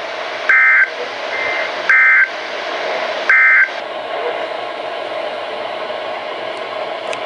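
Emergency Alert System end-of-message data bursts: three short two-tone digital squawks about a second and a half apart, marking the end of the warning. They play over steady radio hiss.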